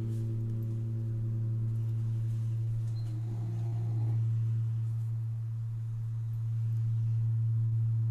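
Singing bowl sounding one deep, steady tone with a few fainter higher overtones, held through with slight swells in loudness.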